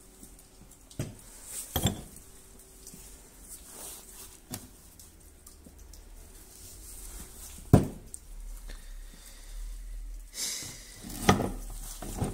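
Irregular knocks and clinks of hard objects being handled, a few seconds apart; a low hum comes in about eight seconds in.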